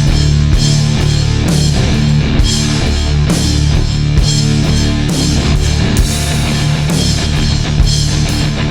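Loud rock music with a drum kit and electric guitar, playing on with a steady beat.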